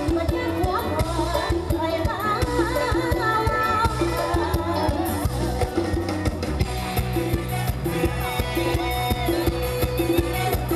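Amplified live mor lam band music with a steady drum beat under a winding melody line.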